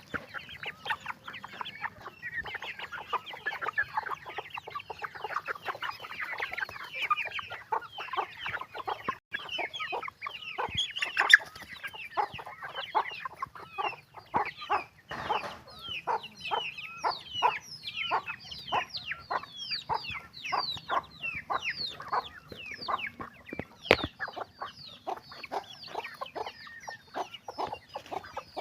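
A flock of chickens calling: a continuous stream of short, high, falling calls, several a second, with a couple of sharp louder sounds.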